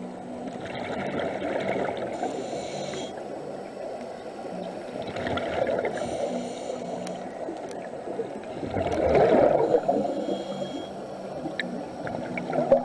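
Muffled underwater ambience recorded in a camera housing, with a scuba diver's regulator breathing: three hissing, bubbling breath cycles about four seconds apart over a steady low rumble.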